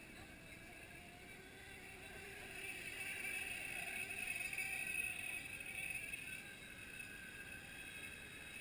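Radio-controlled model boat's small high-revving motor whining as it runs across the water. It grows louder from a few seconds in to a peak about halfway, then fades.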